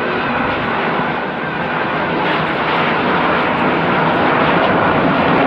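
Airplane engines running steadily, growing a little louder in the second half, with a faint steady whine riding over the noise.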